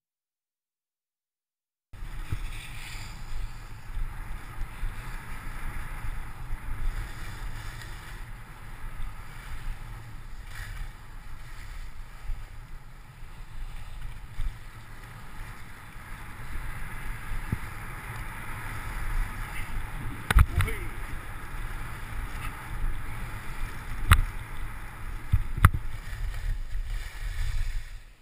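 After a couple of seconds of silence, skis hiss and scrape steadily over packed snow while wind buffets the GoPro microphone with a low rumble. There are a few sharp knocks about three quarters of the way through.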